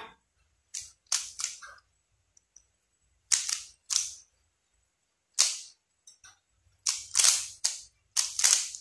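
Plastic layers of a QiYi MoFangGe 3x3 speed cube turned quickly by hand during a solve: short bursts of sharp clacking turns in clusters, with pauses between, the sound of a cube held up as very smooth-turning.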